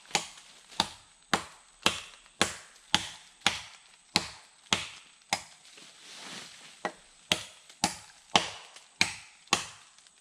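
Wood being chopped with a blade, sharp strokes at about two a second, with a short pause near the middle.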